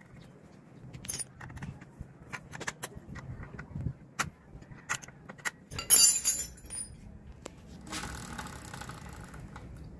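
Small metallic clicks and clinks of a motorcycle's drive chain, rear sprocket and tools being handled during a rear-wheel adjustment, with a loud jangle about six seconds in. In the last two seconds the rear wheel is turned by hand, giving a steady rattle of the chain running over the sprocket.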